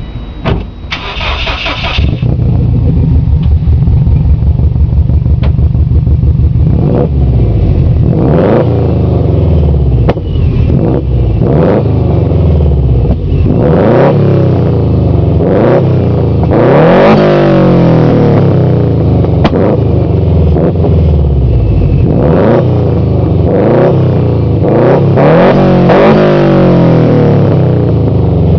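Subaru WRX turbocharged flat-four boxer engine with an aftermarket header, heard loud through its exhaust. It runs at a steady idle from about two seconds in, then is blipped repeatedly, each rev rising and falling in pitch.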